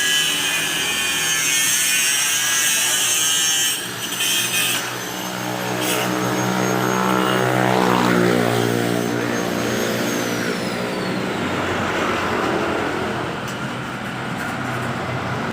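A motor running steadily, rising in pitch for several seconds through the middle, with a high whine that falls away after that.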